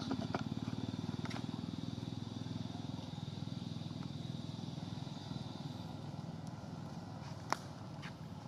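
A small engine running steadily with a low, rapid putter. A single sharp click about seven and a half seconds in.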